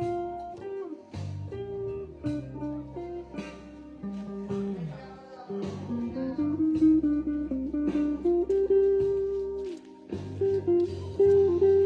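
Gentle live acoustic guitar played through PA speakers: a plucked melody over long, low bass notes.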